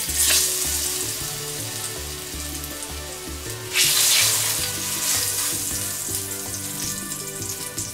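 Ripe plantain slices sizzling as they go into hot oil. The sizzle flares up as the first slice is laid in and again about four seconds in as another slice is slid in with a spatula, each time settling back to a steady frying hiss.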